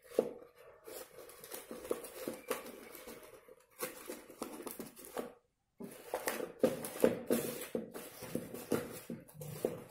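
Dry corn husk strips rustling and crackling as hands press and adjust them around a paper cone, in quick irregular clicks. The sound cuts out completely for about half a second just after the middle.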